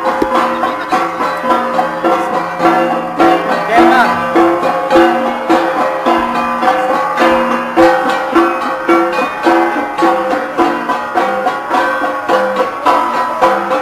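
Gangsa ensemble, flat bronze gongs struck in a steady, repeating rhythm of ringing metallic notes, about two beats a second.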